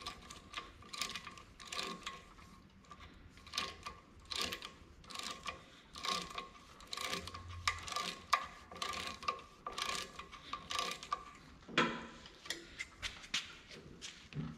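Hand ratchet wrench clicking in quick runs as the tooth bolts on a stump grinder's cutter wheel are turned, with a louder metal clank about twelve seconds in.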